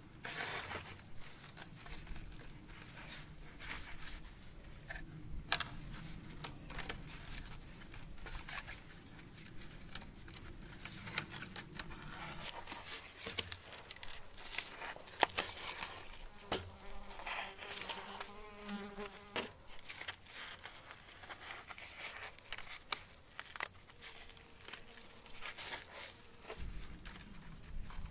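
Plant-fibre cord being wound and pulled tight around a wooden pole, with light rustling, scratching and small clicks of fibre against wood. An insect buzzes close by for a couple of seconds about two-thirds of the way in.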